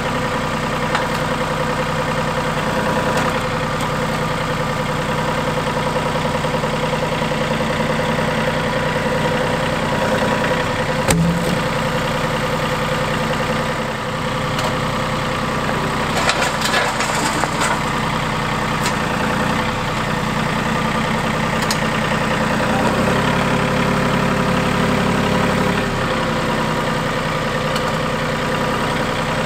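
RK37 compact tractor's diesel engine running steadily as the loader and grapple work. One sharp knock about eleven seconds in, and the engine note changes for a few seconds later on.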